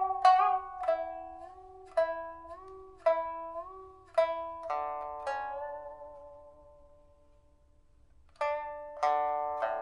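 Solo pipa (Chinese lute), a 2014 Liu Xiangxian suanzhi-wood instrument with a steel first string and copper lower strings, being tried out just after its soundboard and frets were replaced. Single plucked notes ring and fade, several bent up in pitch and let back down. Past the middle a long note dies away almost to nothing before playing resumes near the end.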